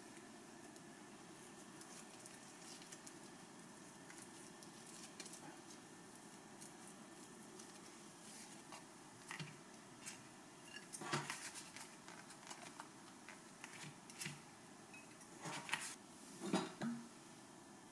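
Quiet handling sounds: a kitchen knife cutting soft bread dough and hands shaping it into balls on a floured wooden board, with scattered light taps. A few louder knocks come about two-thirds of the way in and near the end.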